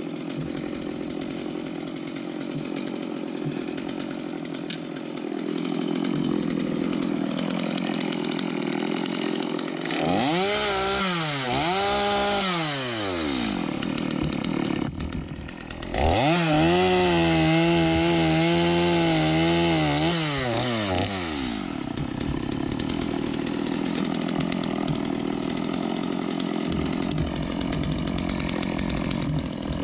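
Two-stroke chainsaw running at idle, revved up and down twice about ten seconds in, then held at high speed for about five seconds before dropping back to idle.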